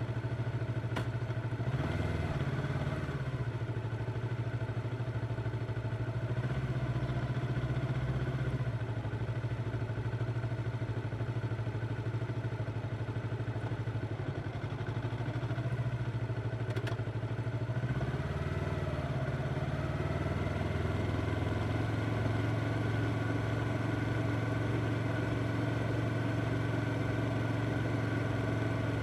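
Yamaha R25 motorcycle's parallel-twin engine running at a steady engine speed while riding, with slight dips and changes in pitch about two seconds in and again around eighteen seconds.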